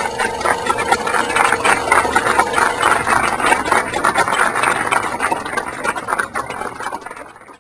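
Dense, rapid, irregular clattering over the last of a string melody, which fades out within the first few seconds. The clattering tapes off and then cuts off abruptly.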